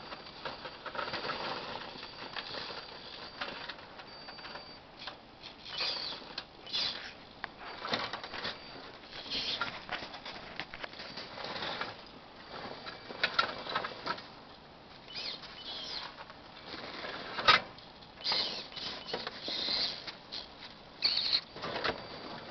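Redcat Rockslide 1/8-scale RC rock crawler clambering over plastic lawn chairs: short, irregular bursts of motor and gear whine, with tyres scrabbling and knocking on the plastic, and one sharp knock a little past the middle.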